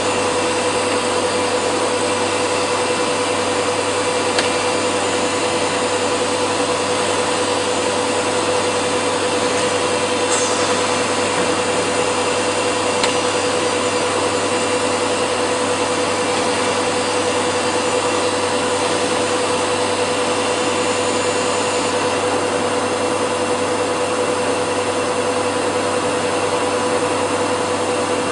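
PTP CNC router machining wood: a steady rushing cutting noise with a constant tone from the spindle, the machine running without a break.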